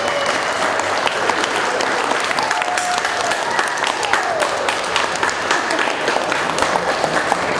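A roomful of people applauding, a dense patter of hand claps that holds steady throughout.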